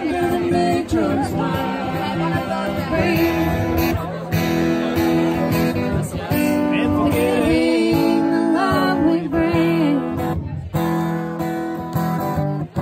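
Music: an acoustic guitar strummed with a voice singing a melody over it.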